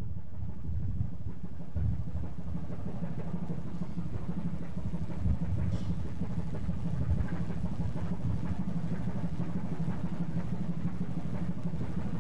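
Steady low rumble with uneven surges and no clear rhythm or pitch.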